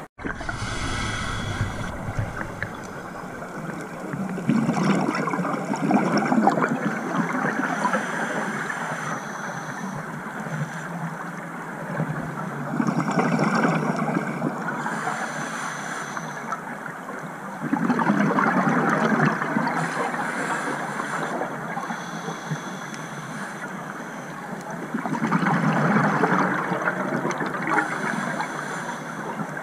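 Scuba diver breathing through a regulator, heard underwater: four gurgling rushes of exhaust bubbles about seven seconds apart, one per exhalation, with a quieter hiss between them.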